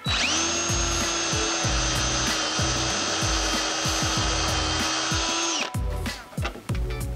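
Cordless DeWalt drill boring a pilot hole into a wooden stud: the motor whine spins up at the start, holds steady, then stops about five and a half seconds in.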